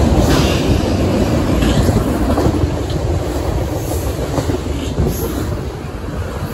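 Freight train tank cars rolling past just below: a steady rumble of steel wheels on the rails, with a few sharp clicks from the wheels crossing rail joints.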